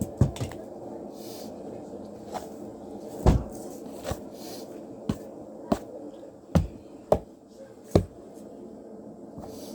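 Steady background hum with scattered sharp knocks and taps, about eight at irregular intervals, from objects being handled and set down.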